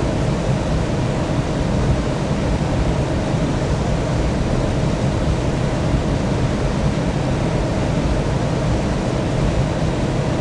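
Steady airliner noise: an even, unbroken rush with most of its weight in the low end.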